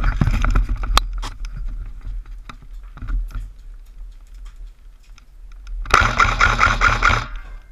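Airsoft rifle firing one rapid full-auto burst of about a second, late on, after scuffling movement and a sharp click near the start.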